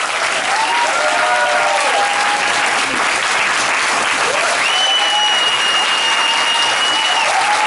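Audience applauding with voices calling out. A steady high tone, like a long whistle, is held for about two and a half seconds in the second half.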